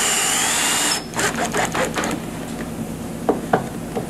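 Cordless drill with a thin bit boring a pilot hole through a spa receptacle's metal flange into the acrylic shell; the motor runs with a high steady whine, its pitch dipping slightly under load, then stops abruptly about a second in. Light clicks and taps follow.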